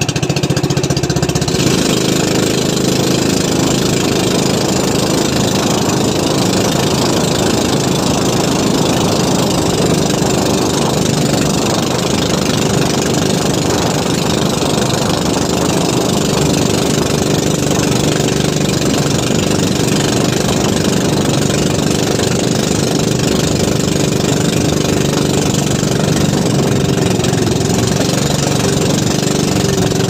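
Small fishing boat's engine running steadily at an even speed.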